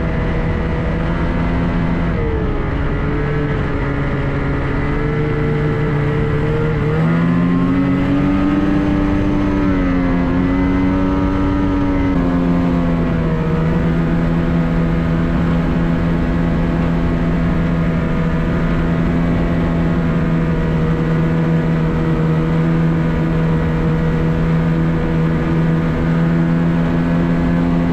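Ski-Doo MXZ X-RS 850 E-TEC snowmobile's two-stroke twin engine running under way. Its pitch rises about seven seconds in, eases back around twelve seconds, then holds steady.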